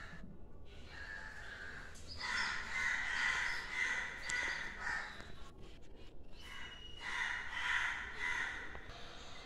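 Crows cawing in two spells of overlapping harsh calls, one from about two to five seconds in and another near the end.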